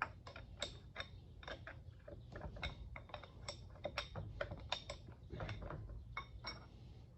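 Irregular light metallic clicks and ticks, a few a second, some with a faint ring, as the compound of an old lathe is worked loose by hand.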